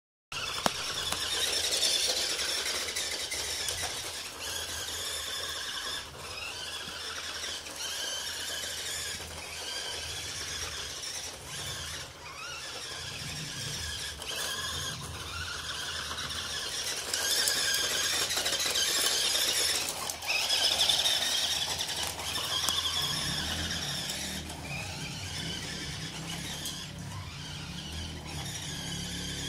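Toy remote-controlled car's small electric motor and gears whining at a high pitch, swelling and fading as it speeds up and slows down. The whine is loudest and highest a little past the middle.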